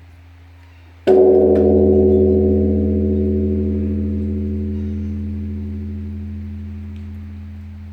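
Korean Buddhist temple bell struck once about a second in, then ringing with many tones over a deep hum that fades slowly. A low hum from an earlier stroke is already sounding before the strike.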